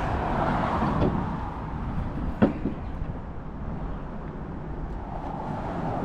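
Steady rumble of road traffic, with one sharp knock about two and a half seconds in.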